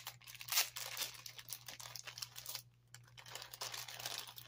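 A small plastic bag crinkling as it is handled and opened, with a strand of faceted beads clicking against each other; the crackling pauses briefly just before three seconds in.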